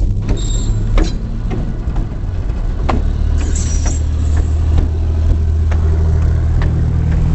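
EMD GP9 locomotive's two-stroke diesel running with a steady low drone that grows stronger about three seconds in, heard from aboard, while the wheels click over the rail joints at irregular intervals. A brief high squeal comes in about three and a half seconds in.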